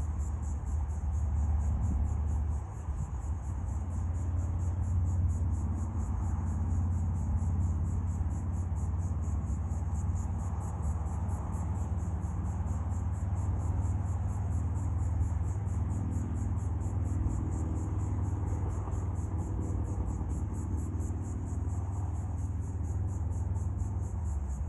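Insects chirping in a fast, even, continuous pulse over a steady low rumble.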